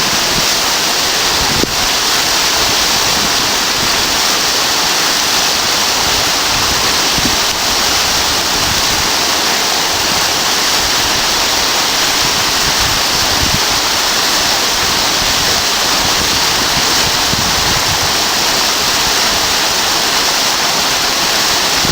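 Water falling and rushing steadily, an even hiss with no break.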